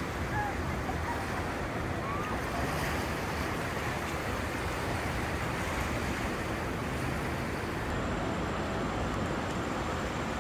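Ocean surf washing steadily onto a beach, an even rushing noise.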